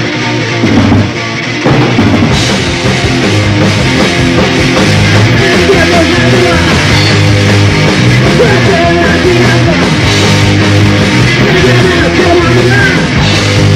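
Punk rock song played from a band's tape: drums, electric guitar and bass, with the full band coming in louder just under two seconds in.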